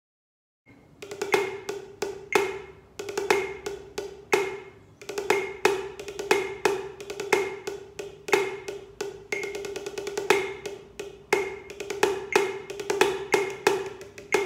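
Wooden drumsticks playing a rudimental snare-drum solo on a handmade practice drum. Loud accented strokes are mixed with quicker, softer strokes over a steady pitched ring from the head, starting just under a second in.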